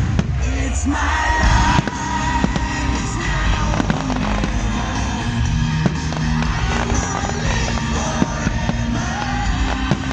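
Fireworks display: many sharp bangs and crackles over a continuous low rumble, with music playing throughout.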